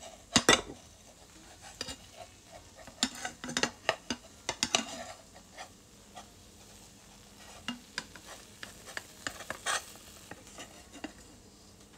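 A cooking utensil scraping and tapping in a frying pan, irregularly, over faint sizzling, as a chijimi (Korean pancake) fries. The pancake is already quite burnt and won't turn over.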